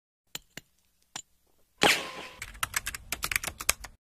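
Sound effects of an end-screen animation. A few single clicks come first. About two seconds in there is a sudden louder swish with a falling tone, then a quick run of clicks like typing that stops just before the end.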